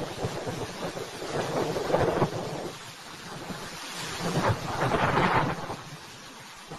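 Hurricane Ian's wind and rain rushing in surges, swelling about two seconds in and again near five seconds, then easing.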